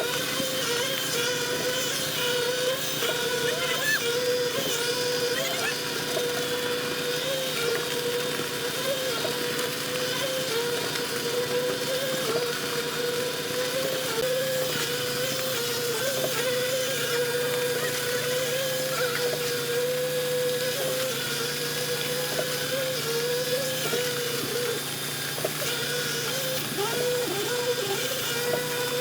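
Machinery running steadily, with a constant pitched hum that wavers slightly in pitch.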